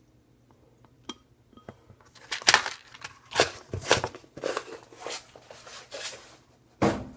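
Spoon stirring glue mixed with funfetti sprinkles in a bowl: a run of irregular scraping strokes, about two a second, starting about two seconds in.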